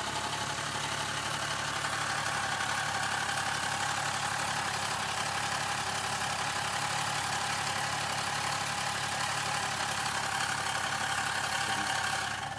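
2001 VW Jetta's 2.8 L VR6 idling with a used 02J five-speed manual gearbox in neutral and the clutch engaged. A loud ticking/clicking comes from the drivetrain and cuts off shortly before the end as the clutch is disengaged. The noise is heard only while the clutch is engaged; its cause is unknown to the owner.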